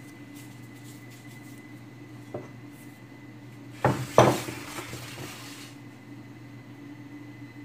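Two sharp knocks of a hard kitchen utensil or dish on the counter, close together, followed by a short rattle, over a faint steady hum; a small tap comes a second or so before them.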